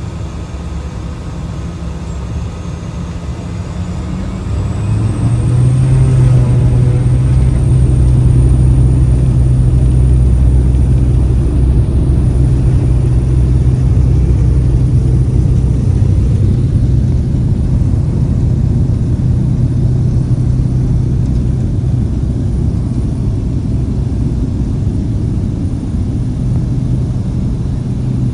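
Light propeller aircraft's engine running, heard from inside the cabin; power comes up about five seconds in, with a thin high whine rising, then holds at a steady drone.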